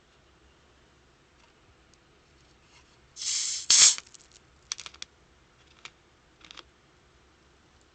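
Sprite being opened: a hiss of escaping carbonation about three seconds in, lasting about a second and loudest at its end, followed by a few short clicks of the container being handled.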